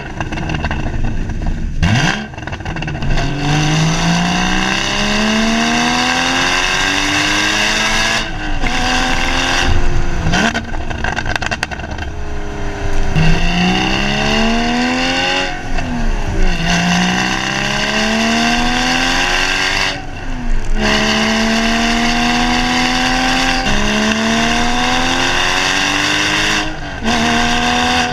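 Porsche Cayman GTS exhaust under hard acceleration, the engine note climbing through each gear and dropping sharply at every upshift, about eight shifts in all.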